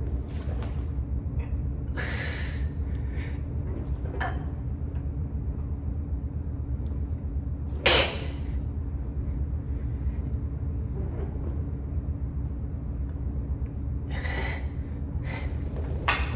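A person breathing hard in short, forceful exhales while working a cable back exercise, over a steady low hum. A single sharp click about eight seconds in is the loudest sound, with another click near the end.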